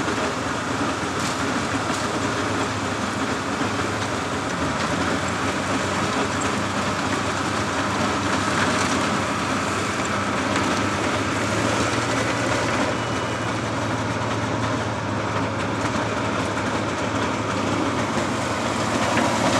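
Crawler bulldozer's diesel engine running steadily while its steel tracks clank as it drives.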